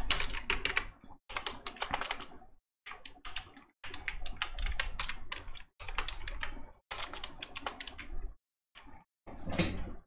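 Typing on a computer keyboard: quick runs of keystrokes in short bursts, with brief pauses between them.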